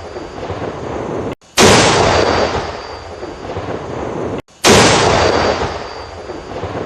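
Tank cannon firing twice, about three seconds apart: each shot is a sharp blast followed by a long rolling rumble that slowly dies away, and a moment of silence cuts in just before each one.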